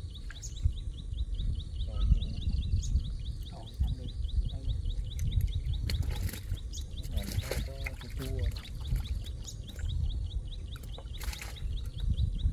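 Outdoor ambience: a steady low rumble under a fast, even, high-pitched chirping rhythm, with a few short noisy bursts and a brief pitched call near the middle.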